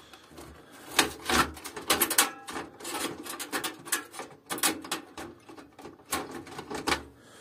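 Hands handling parts inside a steel desktop PC case: irregular clicks, rubs and scrapes as cables are moved and the Intel stock CPU cooler is pressed down on the motherboard.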